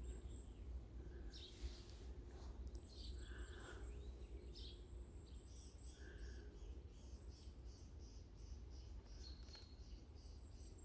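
Faint woodland ambience: small songbirds chirping with short high notes. In the second half one gives a run of rapid, evenly repeated high notes, about three a second, over a steady low rumble.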